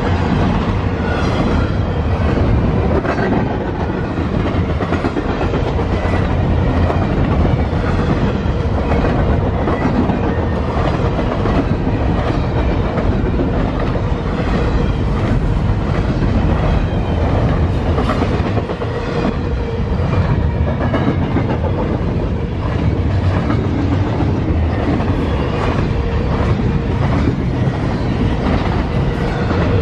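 Double-stack intermodal container cars of a freight train rolling past close by: a steady, continuous rumble with the wheels clicking rhythmically over the rails.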